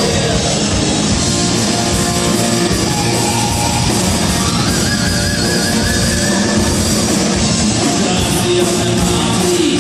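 Rock band playing loud, with electric guitar and drums.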